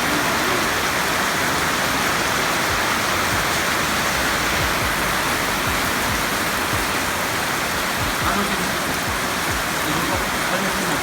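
Heavy typhoon rain falling in a steady, unbroken hiss.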